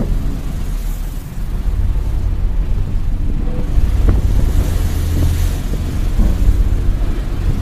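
Low, steady rumble with a rushing hiss: storm wind and heavy seas heard from aboard a ship, with the ship's own hull and engine noise underneath.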